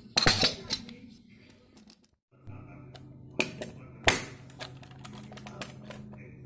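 Stainless steel two-tier tiffin box being put together: metal lids and tiers clinking and the clip handle's latch snapping shut, a scatter of sharp metallic clicks, the loudest about four seconds in. A low steady hum runs under it from about two seconds in.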